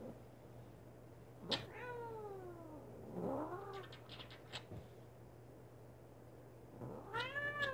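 Domestic cat giving three drawn-out, complaining meows while being held and kissed, which she dislikes: a long one falling in pitch about a second and a half in, a shorter one about three seconds in, and a rising-then-falling one near the end.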